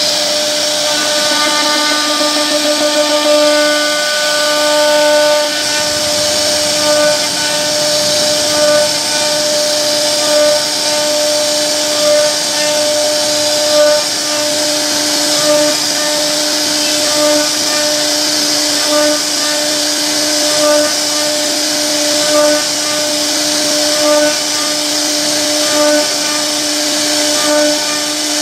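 CNC router spindle whining at a steady pitch while its bit carves a twisted rope moulding into a wooden board. The cutting noise swells in a regular rhythm, about once every second and a half to two seconds.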